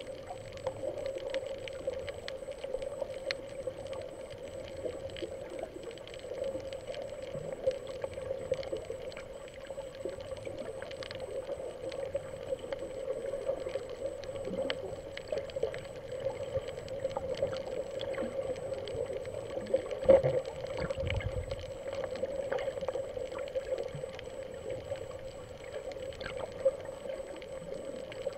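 Underwater reef ambience recorded through a camera's waterproof housing: a steady muffled hum with scattered sharp clicks and crackles. About 20 seconds in there is a single louder knock followed by a brief low rumble.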